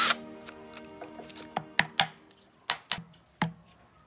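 A brief burst from a cordless drill on an engine block, followed by a series of sharp metallic clinks and taps as parts are worked loose and handled. Faint background music runs underneath.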